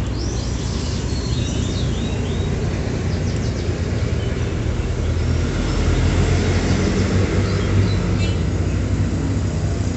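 Steady low rumble of motor vehicle engines in the background, with a few faint bird chirps in the first two seconds.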